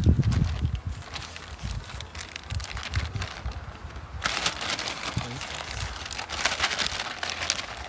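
Plastic mailer bag and packaging being torn open and crinkled by hand, with a dense run of crinkling starting about halfway through and lasting some three seconds. It opens with a few low rumbling thumps.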